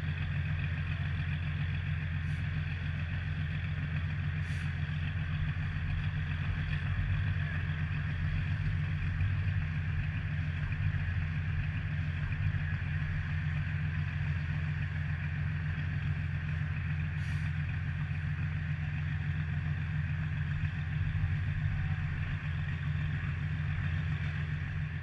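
Engines of bridge erection boats running steadily on the water, a constant low drone with a hiss above it.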